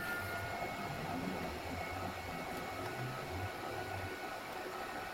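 Mikrosha 2000 induction heater running: a steady whirring noise with a faint, thin high whine held throughout.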